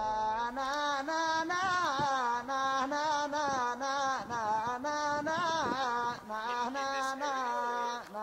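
A man singing a wordless Dhofari 'nana' melody, long wavering phrases in a chant-like style, over a steady low hum.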